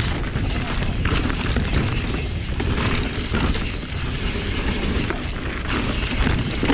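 Wind buffeting the microphone during a fast mountain-bike ride, with a steady low rumble and frequent knocks and rattles from the full-suspension bike and tyres running over rough dirt trail.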